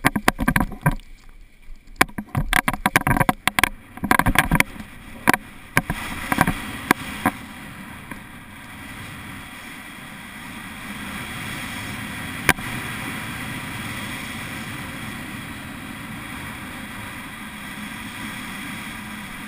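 Wind buffeting the microphone of an action camera worn by a paraglider pilot: loud gusts, knocks and flapping during the launch run in the first several seconds, then a steady rush of wind in flight, with a single click about midway.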